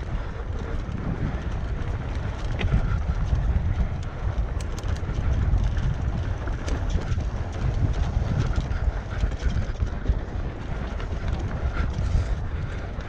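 Wind rushing over the microphone of a camera riding on a mountain bike during a fast enduro descent, with scattered clicks and rattles from the bike over the trail.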